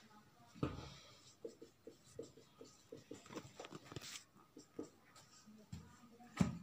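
Marker writing on a whiteboard in quick short strokes, several a second. There is a soft thump just after the start and a sharper knock near the end.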